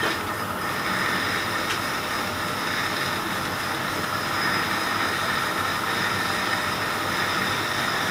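Metal lathe running with a high-speed steel tool taking a slow, hand-fed taper cut across the face of a model locomotive driving wheel: a steady cutting noise with a faint high whine over it.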